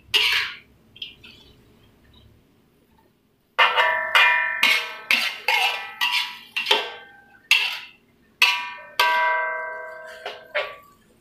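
A spatula knocking and scraping against a thin aluminium wok while stir-frying water spinach. Each strike rings briefly like a bell: one knock at the start, then a quick run of a dozen or more from about three and a half seconds in.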